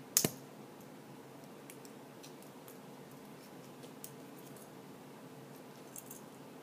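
Small hand tools being handled on a wooden table: one sharp knock about a quarter second in, then scattered faint ticks and clicks, over a steady faint hum.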